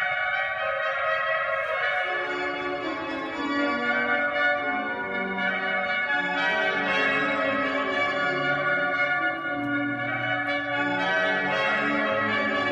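Baroque ensemble music: a trumpet plays the instrumental introduction of an aria, with lower accompanying notes joining about two seconds in.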